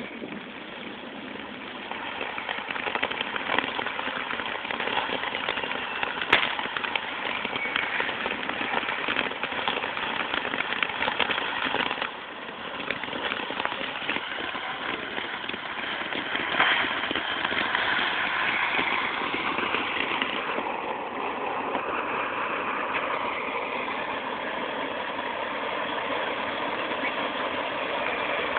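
A burning firework fountain spraying sparks, a steady hiss with fine crackling, with a single sharp pop about six seconds in.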